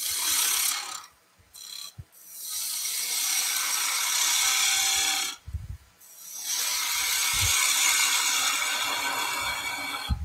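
Skew chisel cutting the end grain of a spinning wooden blank on a wood lathe: a steady shearing hiss in long passes, broken by short pauses about a second in and again just past halfway.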